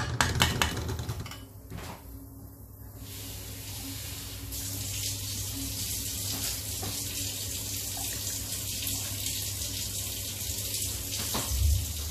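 A steel ladle clatters against a steel kadai as soaked rice is stirred into a watery vegetable mix, then the pan's liquid simmers on the gas hob with a steady, even hiss. The ladle knocks in the pan again near the end.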